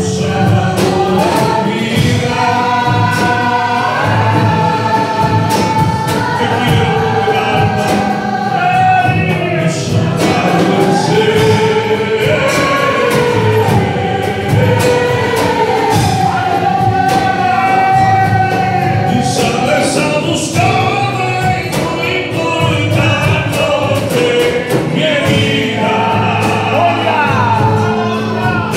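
A man singing a worship song into a microphone, accompanied by strummed acoustic guitar and a drum kit.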